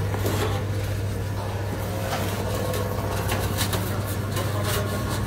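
Foam takeaway boxes being stacked and closed and a plastic carrier bag rustling as they are packed, a run of light clicks and crinkles over a steady low mechanical hum.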